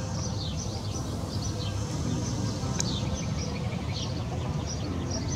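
Small birds chirping, a string of short, high, falling chirps, over a steady low rumble of background noise. One sharp click a little before the middle.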